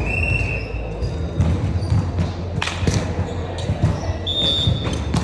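Ball thuds and sneaker squeaks on a hard indoor court, with a steady low hum from the hall.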